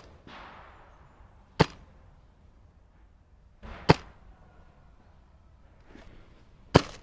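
Wolverine MTW HPA airsoft rifle, set up as a DMR firing 0.45 g BBs at 1.88 joules, shooting semi-auto single shots: three sharp cracks a little over two seconds apart.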